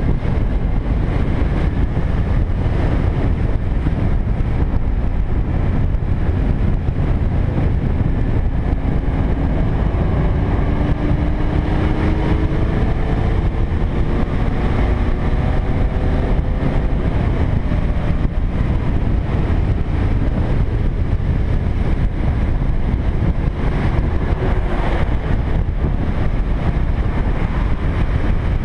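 Cruiser motorcycle riding at road speed: a steady engine drone under heavy wind rush on the microphone. Its engine note rises gently from about ten seconds in.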